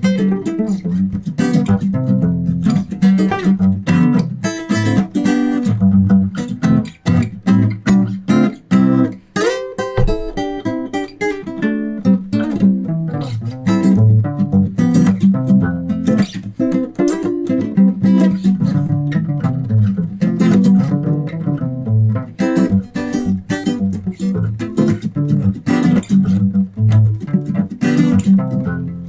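A single guitar played solo, fast plucked notes over a low bass line, mixing bass, rhythm and lead parts at once, with a short lull partway through.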